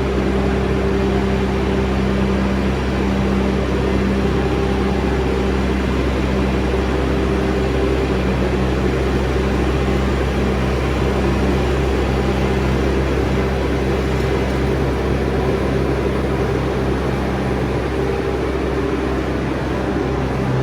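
Bobcat S650 skid steer's diesel engine running steadily under working load, its low hum shifting slightly in pitch a few times as the machine is worked.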